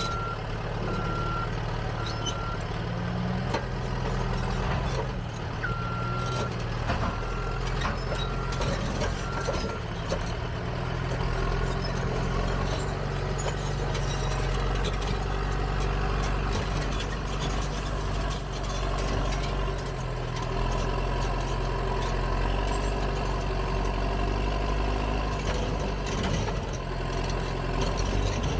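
Heavy diesel machine engine running and working, its pitch shifting with load, with a backup alarm beeping about once a second at the start and again from about six to ten seconds in.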